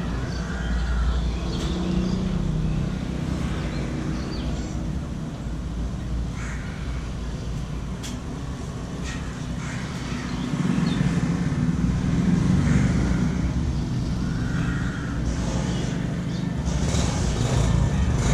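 Steady roadside traffic rumble, growing louder about ten seconds in, with a few scattered sharp clicks or taps.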